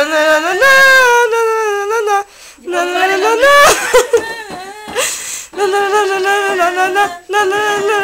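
A high voice singing or wailing wordlessly in long held, wavering notes, with short breaks between phrases and a couple of harsh, breathy bursts near the middle.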